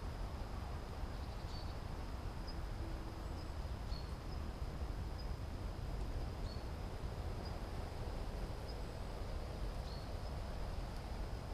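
Crickets or similar insects trilling: a steady high note with short chirps repeating about every second. Underneath runs a steady low rumble of outdoor noise.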